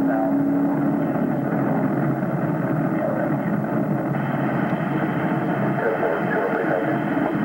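Patrol car driving on a paved road: steady engine and road noise heard from inside the car, with faint voices coming in during the last couple of seconds.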